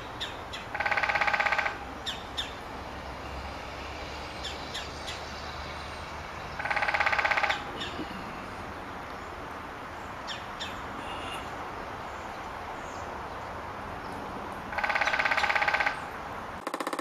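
Woodpecker drumming: three rapid rolls of strikes, each about a second long and several seconds apart, ringing on a resonant surface. Faint bird chirps come between the rolls.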